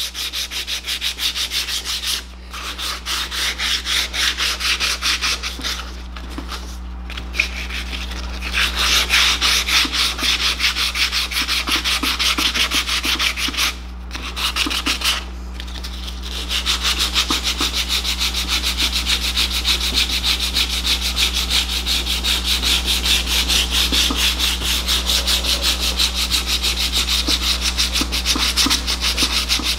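Sandpaper rubbed rapidly back and forth by hand on a Honda CBX's aluminium clutch cover, taking off the corroded surface layer, with a few brief pauses between runs of strokes.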